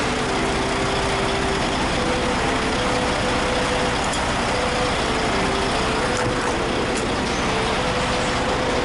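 Steady rumble of semi-truck diesel engines running close by, with a faint hum that steps back and forth between two pitches. A faint click about four seconds in, as the cab door latch is pulled.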